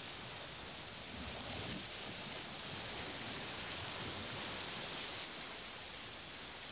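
Ocean surf washing onto the beach: a steady rushing noise that swells a little in the middle and eases off toward the end.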